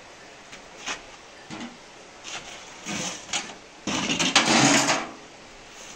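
Plastic scoop scraping through ground grain feed in a wooden trough, several short rasps, then a louder pour of the feed into a bucket lasting about a second, starting about four seconds in.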